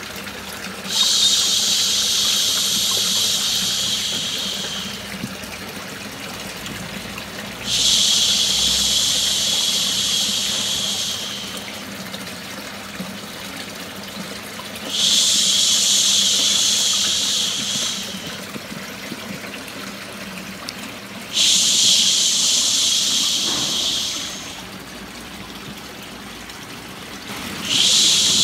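Long 'shhh' shushing sounds, each lasting about four seconds, repeated every six or seven seconds: four full shushes and a fifth starting near the end. Beneath them is a steady background of running, trickling water. Together they make a white-noise track for lulling a baby to sleep.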